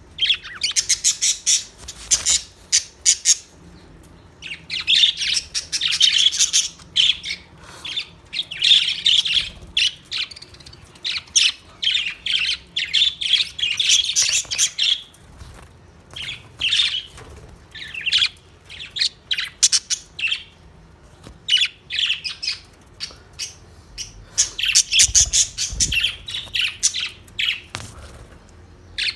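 Budgerigars chirping and chattering in fast runs of high chirps, in bouts broken by short pauses.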